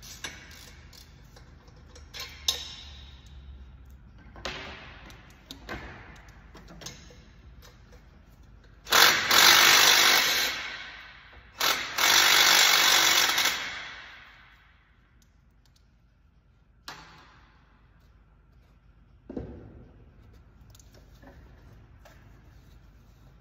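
Handheld power tool run in two bursts of about two seconds each, a little after the middle, the second trailing off over a second or so. Scattered clinks and knocks of hand work in the engine bay come before and after.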